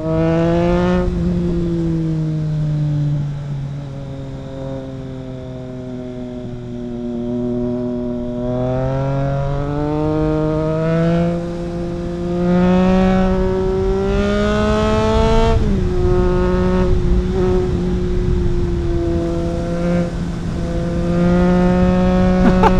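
Triumph Trident 660's inline three-cylinder engine through a home-built custom exhaust with no dB killer, heard while riding. The engine note sinks slowly for the first eight seconds, climbs steadily under acceleration, drops sharply about two-thirds of the way through, holds steady, then rises again near the end.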